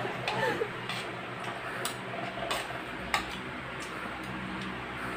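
Metal spoon and fork clinking and scraping against a ceramic plate while eating rice: a few light clinks, roughly one a second.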